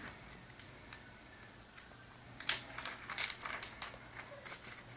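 A replacement laptop LCD screen being picked up and handled in its plastic packaging: light clicks and plastic crinkles, sparse at first and busier from about two and a half seconds in.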